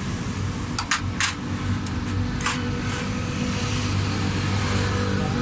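A motor vehicle engine running steadily with a low, even hum. A few sharp metallic clicks come about a second in and again near two and a half seconds.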